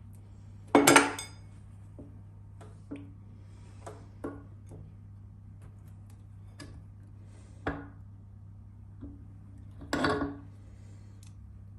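Scattered hard clicks and knocks, like objects being handled on a hard surface, with two louder clattering hits about a second in and near the end. A faint steady low hum runs underneath.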